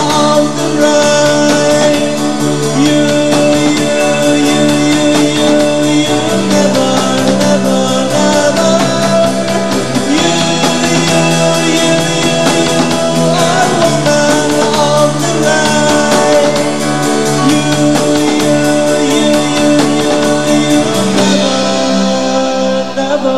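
Live rock band playing: drum kit, bass, electric guitar and sustained keyboard chords under a singer, with the chords changing every few seconds. The high cymbal beat drops out near the end.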